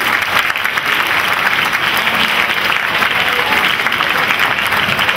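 Audience of many people clapping steadily.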